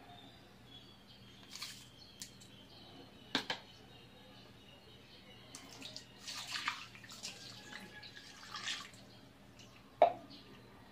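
Kitchen handling sounds while seasoning raw pork belly in a pot: scattered light clicks and short rustles, salt poured onto the meat around the middle, and one sharp knock near the end.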